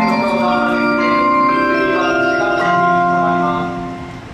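Train platform departure melody: a short chime tune in bell-like mallet tones played over the platform loudspeakers, tailing off near the end.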